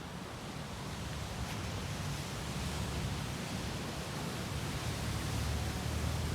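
Sea surf washing steadily, with waves breaking against rocks; the wash swells slightly louder toward the end.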